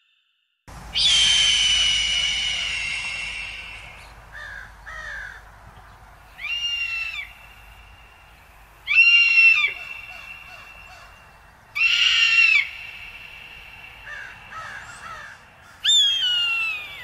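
Eagle calling: five loud, high, clear piercing calls spaced a few seconds apart, the first drawn out and slowly falling, with fainter short calls between.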